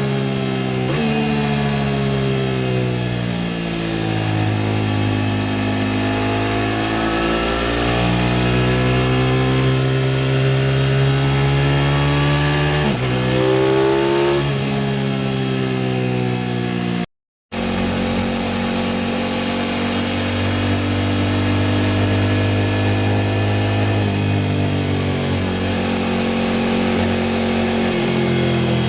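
Aprilia RS660 parallel-twin engine under way, its pitch climbing and falling with road speed and jumping abruptly at gear changes. The sound cuts out completely for under half a second a little past halfway.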